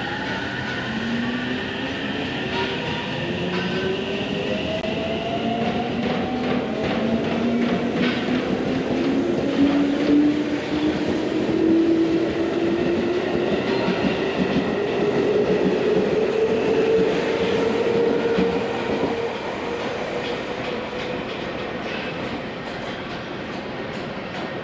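JR Central 313 series electric train pulling out of the platform and speeding up. Its motor whine climbs steadily in pitch over a rolling rumble, with wheels clicking over rail joints. It is loudest midway and fades near the end as the train pulls away.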